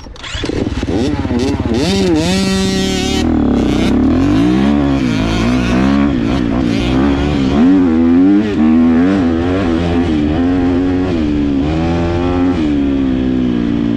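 GasGas MC250 two-stroke motocross bike pulling away and riding hard on sand. The engine picks up over the first couple of seconds and revs steeply about two seconds in, then keeps rising and falling with throttle and gear changes.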